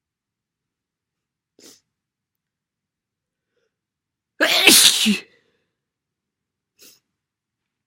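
A person sneezing once, a wet sneeze lasting under a second, about halfway through. Two faint, very brief sounds come one before and one after it.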